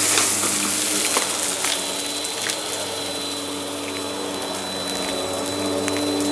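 Bissell upright vacuum cleaner running with a steady motor hum, with the crunch and crackle of confetti and glitter being sucked up off a rug. The crackle is loudest at the start, thinning to scattered clicks as fewer pieces are picked up.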